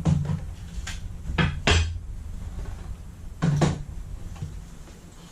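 A few sharp knocks and clunks of hard objects being handled: one near the start, a cluster about a second and a half in, and a double knock about three and a half seconds in.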